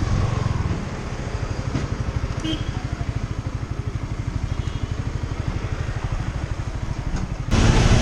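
Yamaha R15 V3's 155 cc single-cylinder engine idling, a steady rapid low pulse.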